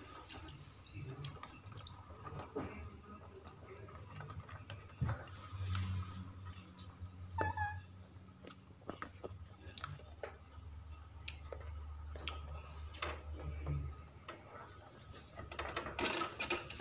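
A steady high-pitched insect trill that breaks off now and then, over scattered clicks and crunches of a cat and a rabbit eating dry pellets from a bowl in a wire cage.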